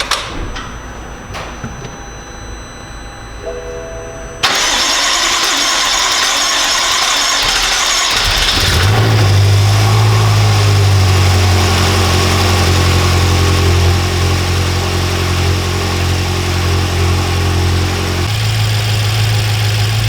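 BMW M6 S63 twin-turbo V8 with its intake open starts about four seconds in with a sudden loud rush. From about nine seconds it settles into a steady, deep idle, which changes slightly near the end. It runs smoothly, without misfire.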